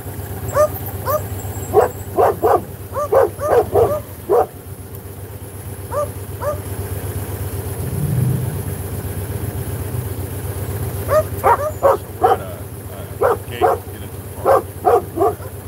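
A dog barking in quick runs of short, high-pitched barks: a run in the first few seconds, two more around six seconds in, and another run in the last few seconds. Under it a motorcycle engine runs with a steady low hum.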